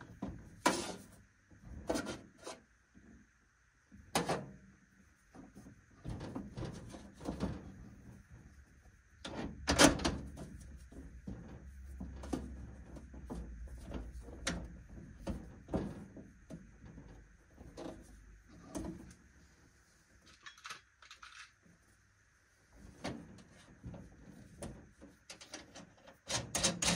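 Irregular clicks, knocks and rustling as hands handle heavy red battery cables and fit a cable lug onto a bus bar stud, with a faint steady high tone underneath.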